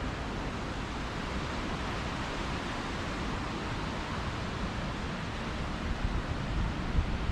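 Steady rushing noise of strong wind, rising slightly near the end.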